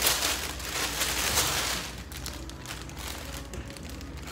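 Packaging rustling and crinkling as a mail-order package is handled, loudest in the first two seconds and quieter after, over a low steady hum.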